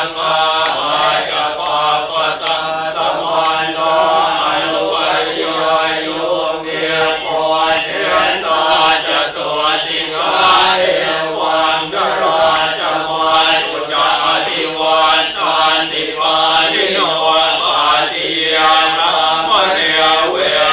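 Several Buddhist monks chanting together in a steady, evenly paced recitation, their voices in unison.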